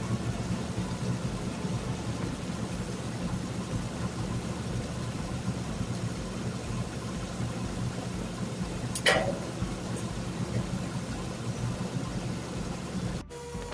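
Diesel semi-truck engine idling steadily, heard from inside the cab. One sharp knock about nine seconds in.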